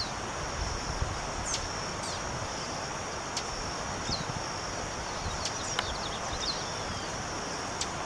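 Female lined seedeater (bigodinho) giving short, down-slurred call notes, about half a dozen spaced irregularly, over a steady high insect drone. A few sharp clicks are heard between the calls.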